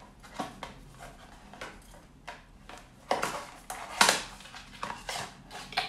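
Small cardboard gift box being handled and its end flap pulled open: a run of short rustles and scrapes, the loudest about four seconds in.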